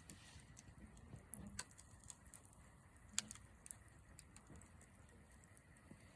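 Wood campfire crackling faintly, with scattered sharp pops; the loudest pop comes a little past three seconds in.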